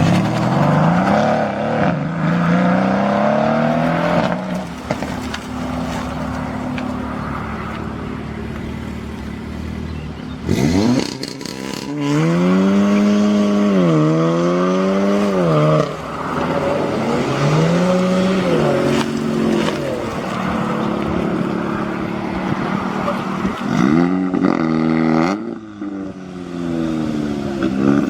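Modified car engines accelerating away and revving. Early on the pitch climbs and drops through gear changes. In the middle come a few quick rev blips, each rising and falling in pitch, and another rev rises near the end.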